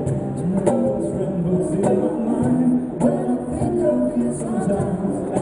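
A live acoustic band playing: strummed steel-string acoustic guitar and violin over a cajon beating out the rhythm, with a voice singing.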